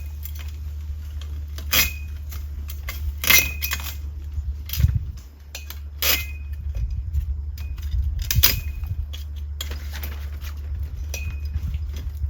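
Irregular sharp clinks and knocks of hard objects, some with a brief ringing tone, every second or two over a steady low hum.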